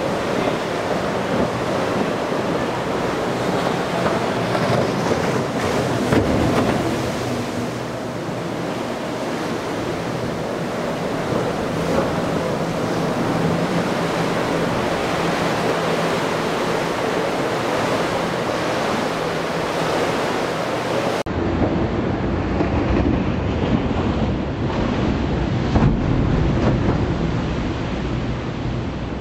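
Waves breaking and rushing through a rough inlet, with wind buffeting the microphone and the low, steady drone of boat outboard engines underneath. About three-quarters of the way through the sound changes abruptly, becoming duller with more low wind rumble.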